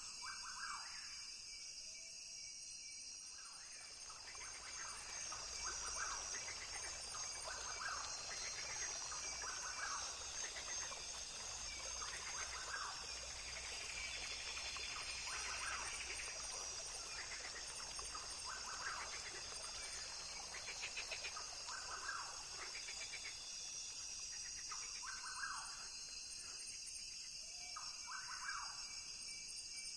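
Rainforest ambience: a steady high-pitched chorus of insects, with short calls repeating every second or two over it.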